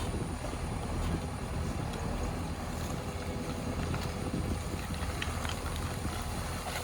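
Diesel engine of a JCB backhoe loader running steadily and low, with a few faint knocks.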